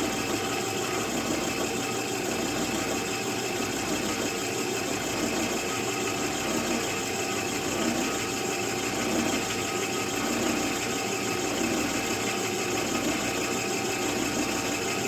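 Electric drill motor running steadily while drilling a pilot hole through a rifle stock.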